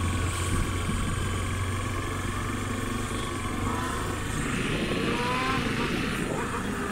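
Engine and road noise from a vehicle driving steadily along a road, with a brief rising whine about five seconds in.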